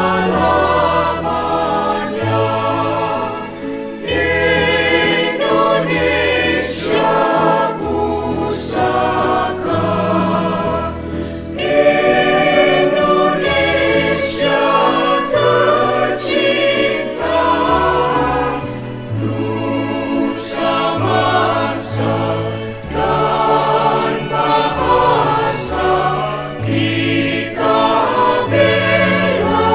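A choir singing a patriotic song in several parts, with sustained chords and low held notes beneath.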